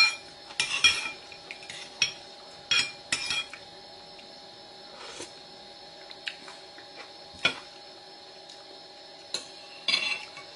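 Metal spoon and fork clinking and scraping against a ceramic bowl while eating: about ten sharp clinks scattered irregularly, some ringing briefly, with quiet gaps between.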